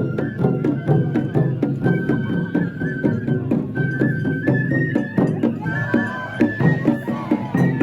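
Japanese festival music (matsuri bayashi): a high flute plays a melody of held notes with small ornaments over quick, steady drum beats.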